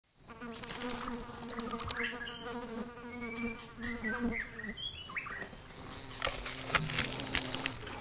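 Wasp's wings buzzing in flight, a wavering drone that runs until about four seconds in, fades, and returns lower near the end, with a few short high chirps over it.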